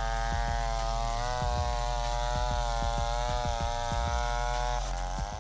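Gasoline chainsaw running at high revs while ripping a plank lengthwise from a log, with a steady engine note. Near the end the pitch dips briefly and comes back up.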